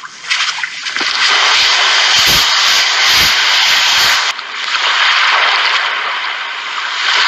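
A loud, steady rushing noise with no clear pitch, with a few dull thuds in the middle.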